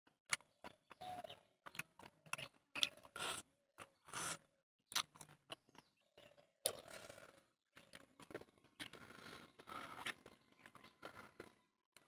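Eating by hand: fingers mixing rice with chicken curry on a plate give irregular short clicks and scraping, along with chewing.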